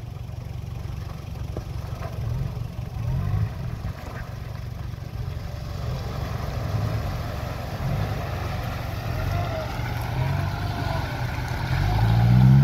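Isuzu Bighorn 4WD's engine working through a muddy off-road gully, revving up and easing off in surges, and growing louder as it pulls up close near the end.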